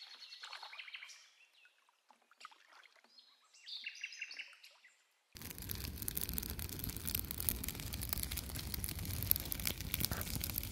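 Faint bird chirps and song in the first half. About halfway through the sound cuts abruptly to a steady, louder hiss with many small crackling clicks.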